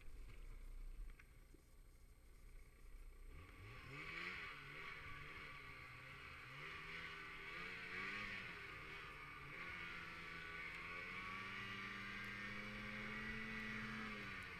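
Snowmobile engine, quiet at first, then revving up about three and a half seconds in and running under changing throttle, its pitch rising and falling, then held higher and steadier near the end before easing off.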